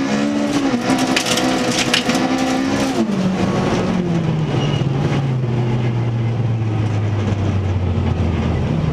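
Toyota Corolla FX-GT rally car's four-cylinder engine heard from inside the cabin, held at high revs for about three seconds with clattering hits from the loose, icy road surface. The engine note then falls and settles low as the driver lifts off and the car slows.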